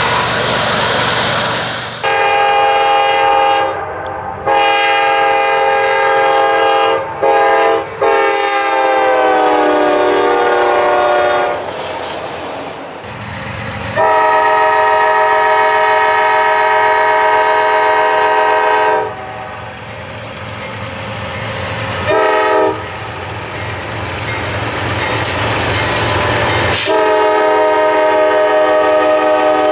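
Diesel freight locomotive air horns sounding the grade-crossing signal of long and short chord blasts, over the rumble of passing trains. The first sequence ends in a long blast whose pitch falls as the locomotive passes. A second horn follows with a long blast, a short one, and another long blast near the end.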